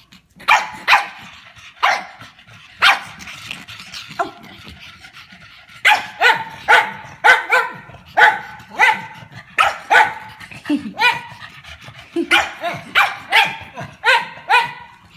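A pug barking over and over: about twenty short, sharp barks in quick runs, with brief pauses between the runs.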